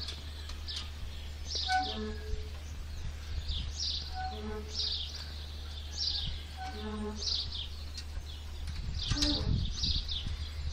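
Rusty metal swing creaking in a steady rhythm, one short squeak about every two and a half seconds as it swings back and forth, while birds chirp.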